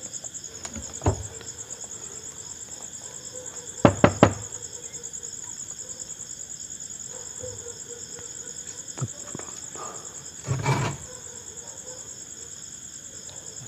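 Crickets chirring steadily, with a few sharp knocks over it: one about a second in, a quick loud triple knock about four seconds in, a click later, and a longer, duller knock near the end.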